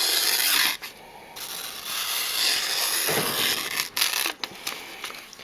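Sharp knife edge slicing through paper, a dry rasping hiss in two strokes, a short one and then a longer one of about three seconds, with a couple of small ticks near the end.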